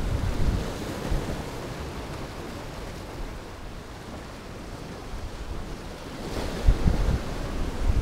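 Sea surf washing and breaking around shoreline rocks, a steady rushing, with wind gusting on the microphone in low rumbles, more of it near the end.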